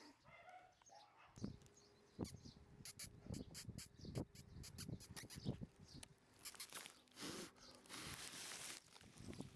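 Red Shiba Inu puppy moving about, making faint, irregular soft knocks and scuffs, many in quick succession for a few seconds and then a short hissing rustle near the end.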